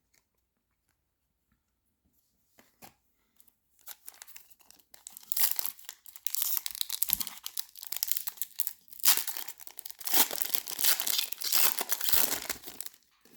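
A wrapper on a pack of football trading cards being torn open and crinkled by hand. A few faint clicks come first, then a dense crackling of wrapper starts about four seconds in and goes on in loud bursts until just before the end.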